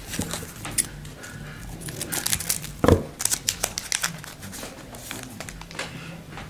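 Foil wrapper of a trading-card pack being torn open and crinkled while the cards are handled, with a soft thump about three seconds in.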